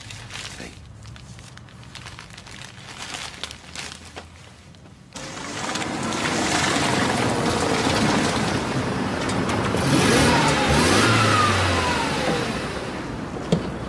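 Quiet room sound with a few faint knocks, then, about five seconds in, the sudden loud sound of a Mercedes saloon car's engine and tyres as it drives on the street. The engine pitch rises and falls a little past halfway through.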